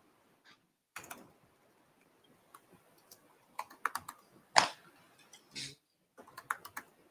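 Keystrokes on a computer keyboard as a terminal command is typed: irregular clicks, bunched in short runs, with one sharper key strike a little past the middle.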